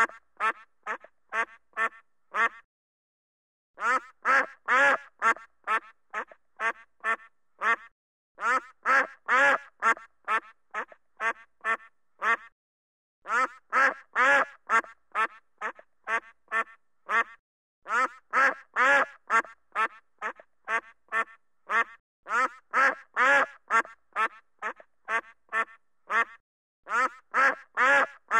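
Duck quacking in repeated runs, each opening with a few loud quacks and trailing off into softer, quicker ones, with short pauses between runs.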